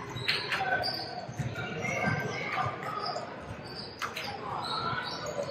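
Youth basketball game on a gym court: sneakers squeaking on the floor, the ball bouncing, and a couple of sharp smacks, about a third of a second in and about four seconds in.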